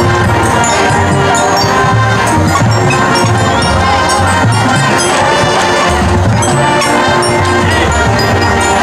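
High school marching band playing a brass-led rock arrangement, sustained horn chords over steady drum strokes.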